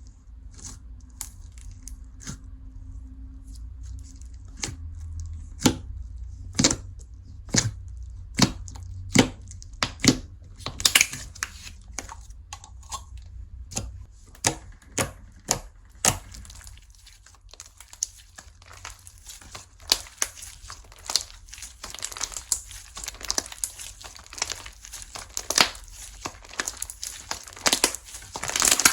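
Slime being squeezed and stretched by hand. Sharp separate pops come about once a second at first; from about ten seconds in they turn into a denser, crinkly crackling.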